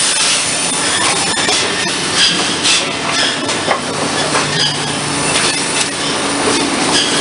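Cedar shake mill machinery running: a steady mechanical din with irregular knocks, clatter and brief high squeals from saws, feed wheels and conveyors.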